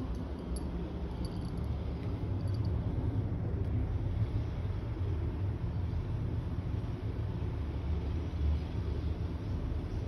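Steady low outdoor rumble with no clear single source, with a few faint, short high chirps or ticks in the first three seconds.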